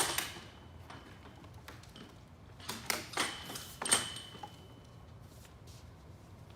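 Plastic car bumper cover being handled on a stand: a few sharp knocks and clatters, clustered about three to four seconds in, some with a brief ring, then quiet handling.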